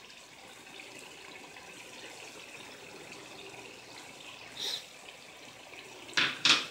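Curry sizzling and simmering softly in the pot on the stove, a low steady hiss. Near the end come two sharp knocks close together.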